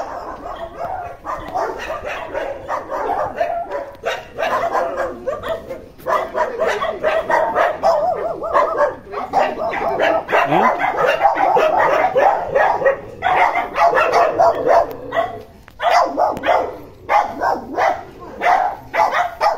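An Indian dog barking rapidly and without pause, the barks getting louder and busier partway through: the excited greeting of a dog at its owner's return after a long absence.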